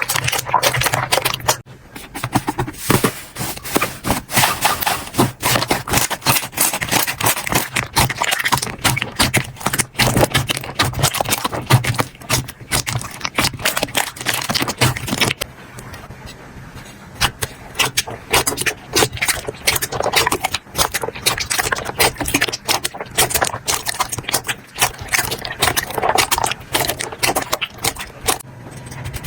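Slime being squeezed, poked and pressed by hand, making dense irregular crackling and popping clicks. A softer stretch with duller clicks comes about halfway through.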